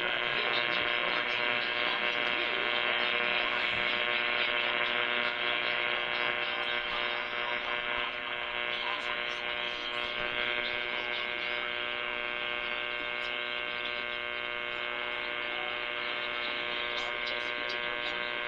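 Steady electrical buzz with many even overtones, coming through a radio receiver's narrow audio band, holding unchanged throughout.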